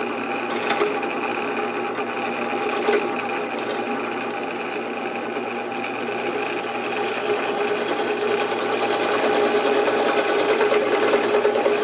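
A drill press runs a carbide bit, drilling into thin worn metal: a steady motor hum with the scraping of the cut, growing louder in the last few seconds as the bit bites in and throws chips.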